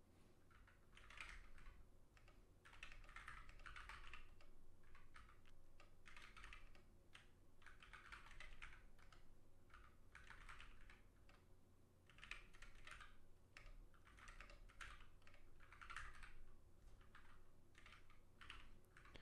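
Faint typing on a ZSA Moonlander split mechanical keyboard: runs of quick keystrokes with short pauses between them.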